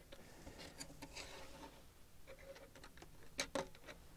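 Faint clicks and taps of 3D-printed plastic stand pieces being handled and pushed into their notches, with two sharper clicks close together about three and a half seconds in.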